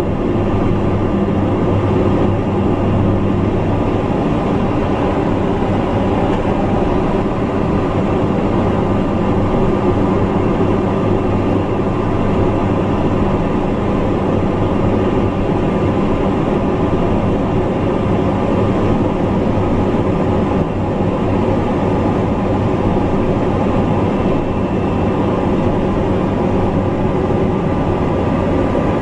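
Light aircraft's engine droning steadily, heard inside the cockpit on the approach to an airstrip.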